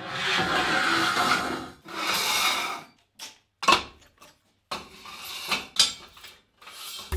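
Steel square tubing scraping as it is slid across a steel table, two long scrapes, then a string of sharp metal knocks and clanks as the lengths are set down and stacked.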